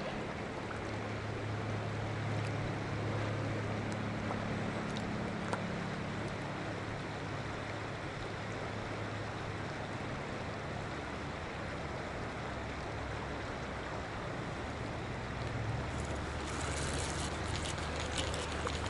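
Steady rush of flowing river current, with a low steady hum through roughly the first half. Near the end, a crackling rustle with short ticks joins in.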